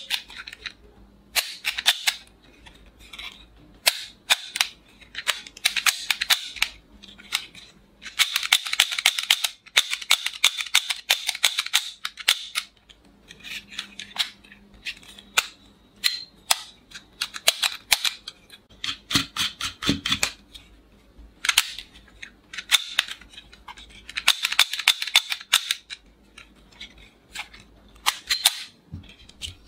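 Plastic toy revolver clicking as it is worked by hand: runs of rapid mechanical clicks lasting a second or more, with single sharper snaps in between.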